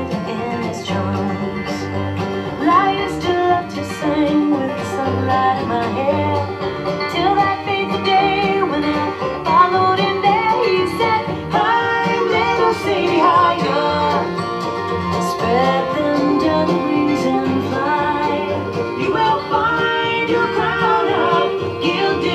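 Background music: an upbeat country-bluegrass tune on plucked banjo and guitar.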